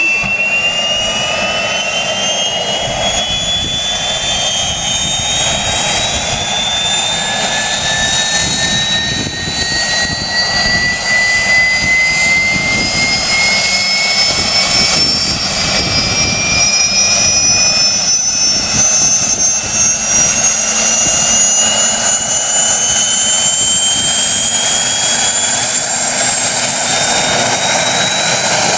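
Bundespolizei Super Puma twin-turbine helicopter running on the ground during start-up, rotor turning. Its turbine whine rises steadily in pitch as the engines spool up, over a low rumble.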